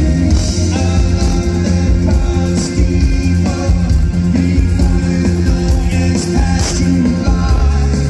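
Live rock band playing loudly through a large outdoor PA, with drums, bass, electric guitar and a male lead vocal, heard from within the crowd.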